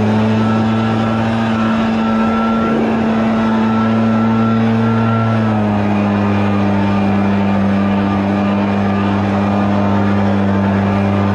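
RedMax EBZ8560 backpack leaf blower's two-stroke engine running near full throttle, with the rush of air from the nozzle. Its pitch rises slightly at the start and drops a little about five and a half seconds in as the throttle eases off.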